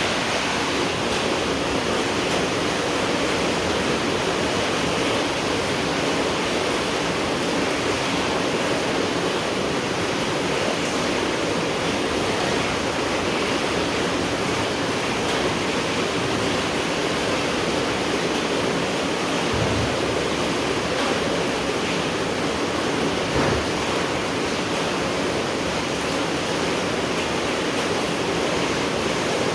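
Steady, heavy rain falling at night: an even, unbroken hiss, with two brief low thumps about two-thirds of the way through.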